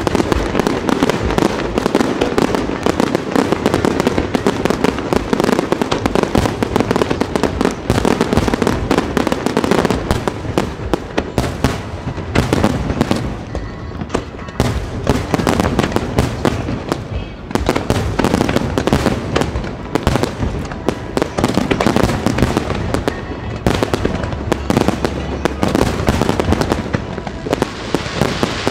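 Fireworks display: a dense, continuous barrage of aerial shell bursts and crackling.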